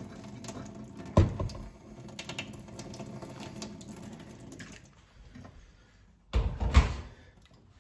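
Hot water trickling out of an espresso portafilter's spouts into a stainless steel sink, with a sharp knock about a second in. Near the end, a louder thud and splash as the portafilter is tipped out.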